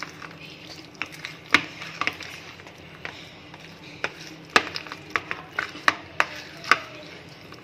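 A metal spoon clacking and scraping against a plastic tub while stirring masala-coated chicken pieces: irregular clicks and knocks, a few sharper than the rest.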